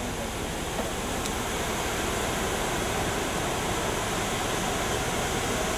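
Steady rush of a solid water stream from a 15/16-inch smooth-bore fire hose nozzle flowing at about 50 psi nozzle pressure, growing a little louder over the first couple of seconds and then holding steady.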